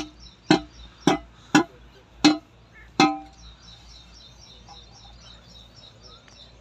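Metal clanks from a steel tubewell pump pipe being struck with a brick: six sharp blows about every half second, each ringing briefly, which stop about 3 seconds in. Faint, fast, high chirping runs underneath.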